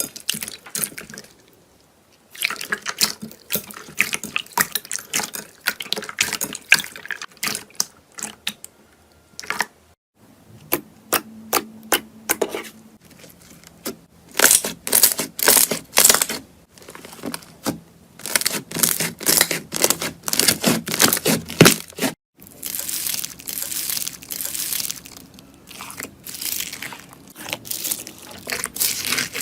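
Slime being squeezed, stretched and poked, making rapid wet clicks, pops and crackles. It comes in several stretches with brief pauses between them.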